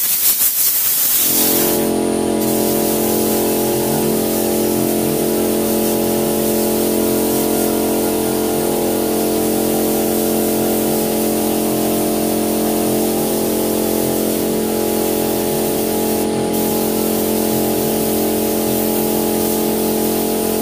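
Compressed-air spray gun hissing steadily as paint is sprayed onto a motorcycle fuel tank. A steady droning hum joins in about a second in and carries on under the hiss.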